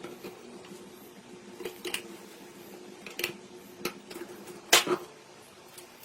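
A handful of sharp knocks and clicks of small metal parts or hand tools being handled on a workbench, the loudest two close together near the end, over a faint steady hum.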